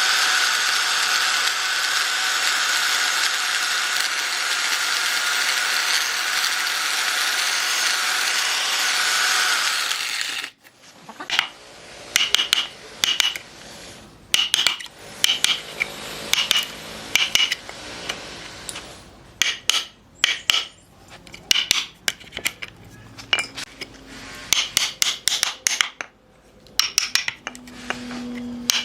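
A power tool runs steadily with a high whine for about ten seconds, then cuts off abruptly. A long series of sharp, irregular taps and knocks from hand work on wood follows.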